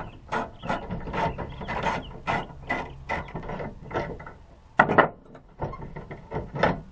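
Hand ratchet and socket clicking in short strokes as screws are backed out of a pickup tailgate's latch mechanism, a few clicks a second. A louder double knock of metal comes about five seconds in.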